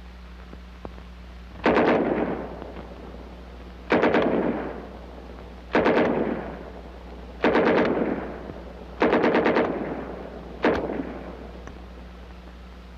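German 9mm MP40 ('Schmeisser') submachine gun fired in six short bursts of a few rounds each, each burst echoing away, over a steady low hum.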